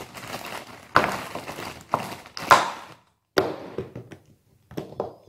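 Small shower-door roller parts being handled and fitted together close to the microphone: several sharp knocks and taps, with rustling and scraping between them during the first three seconds.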